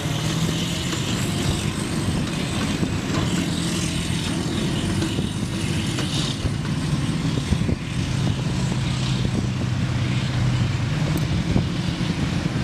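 Diesel engine of a tracked amphibious assault vehicle (AAV7) running hard as it drives across sand and into the surf, with water splashing around its hull. Its pitch drops a little past the middle.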